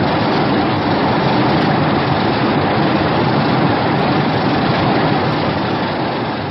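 A Godzilla-film sound effect: a loud, steady rushing noise with no clear pitch, which begins to fade near the end.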